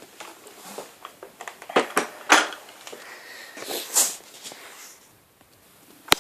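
Handling noises from a plastic upright vacuum cleaner, a Hoover Turbopower Junior, being moved about: a few knocks about two seconds in and a sharp click near the end, with a breathy sniff about four seconds in.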